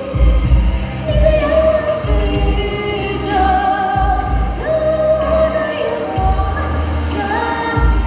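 Woman singing live into a handheld microphone over a backing track, with low bass notes changing every second or two beneath her held, gliding melody.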